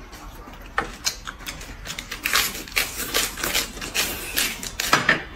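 Crisp lettuce leaves crunching as they are bitten and chewed, in a run of quick crackly bites from about two seconds in.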